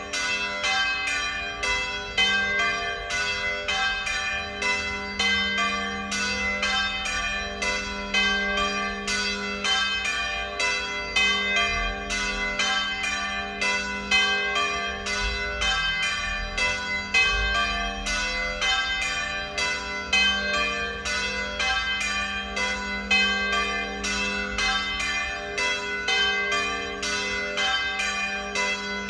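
Three swinging church bells ringing together in a full peal (plenum), their strokes overlapping a few times a second with long ringing tones.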